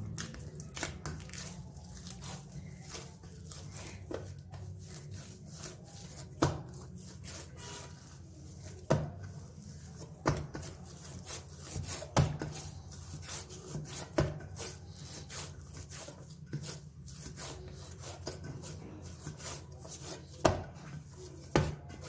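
Hands kneading soft wheat-flour dough in a stainless steel bowl: rubbing and pressing, with a dull knock every second or two as the dough is pushed down against the bowl.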